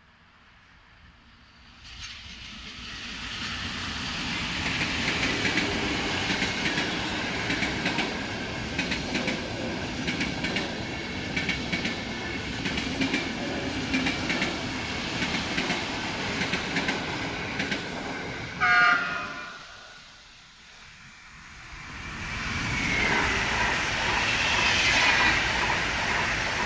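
An electric locomotive hauling passenger coaches passes close by, its wheels clattering over the rails. About 19 s in, a short, loud train horn blast sounds; then an electric multiple unit passes close by.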